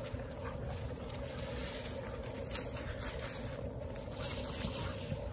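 Two dogs play-wrestling on dry leaf litter, their paws scuffling and rustling the leaves in short bursts over a steady low rumble.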